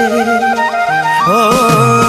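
Instrumental music in Indian film-song style: a melody line that slides and ornaments between notes, flute-like, over sustained backing notes.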